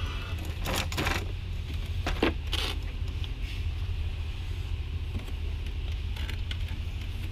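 Framed pictures knocking and clattering against one another as they are flipped through by hand. There are a few sharp knocks in the first three seconds and lighter taps after, over a steady low rumble.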